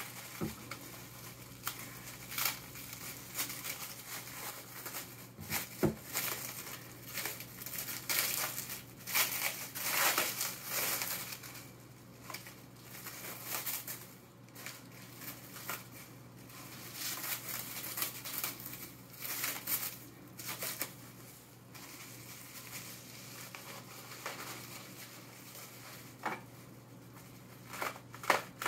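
Plastic packing wrap crinkling and tearing as it is handled and cut open with a knife, in irregular bursts with a few sharp knocks, busiest in the first half and again near the end.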